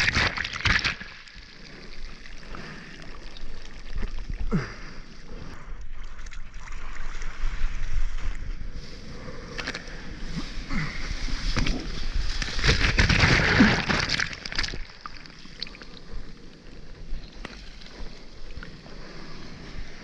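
Seawater rushing and splashing right at a mouth-mounted GoPro as a bodyboard goes through whitewater and shorebreak foam. It is loud at the start, dies down, then swells into a louder rush of breaking foam about two-thirds of the way through before easing.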